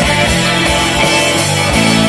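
Live rock band playing at full volume: two electric guitars and a bass guitar sustaining chords over a drum kit, with the kick drum thumping steadily beneath.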